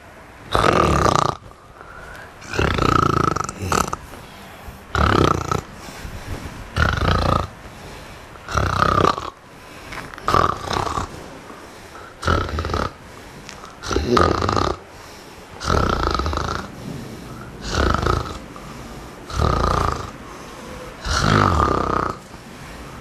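Loud, regular snoring from a sleeping person, one snore roughly every two seconds.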